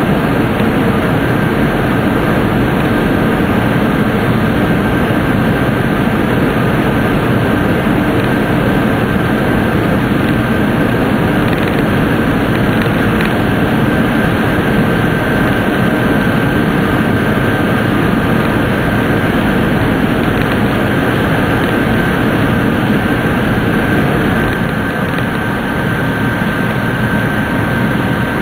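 Tōkaidō Shinkansen passenger car running at speed through a tunnel, heard inside the cabin: a loud, steady rumble and rush with a faint high whine held on one pitch. Near the end the noise drops a little as the train comes out of the tunnel.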